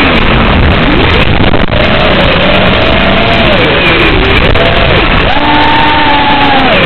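FPV freestyle quadcopter's brushless motors whining, the pitch rising, holding and falling again and again as the throttle is punched and eased, under a heavy steady hiss.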